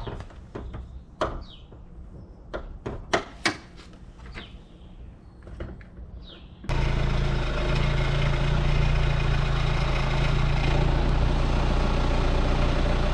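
A few sharp clicks and knocks, then about halfway through a van's engine catches abruptly and runs steadily at idle after a jump start.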